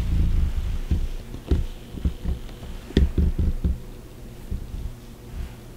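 Soft, low thumps and knocks of bodies and hands shifting on a chiropractic treatment table, a few in the first half second and a quick run of four about three seconds in.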